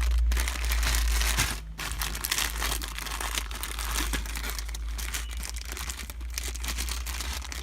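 Plastic packaging crinkling and rustling as a car-stereo wiring harness is handled and its bag is worked open by hand, with short pauses in the crinkling.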